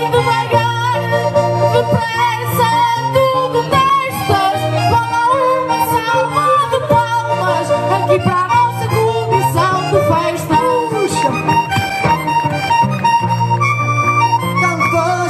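Minhoto concertina (small diatonic button accordion) playing a folk melody over steady bass chords, with guitar accompaniment: an instrumental break in a desgarrada, with no singing.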